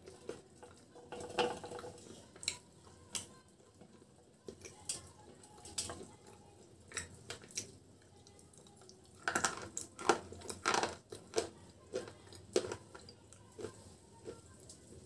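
Close-miked crunching and chewing of dry, crumbly white clay chips and powder: irregular sharp crackles and clicks, densest about nine to eleven seconds in.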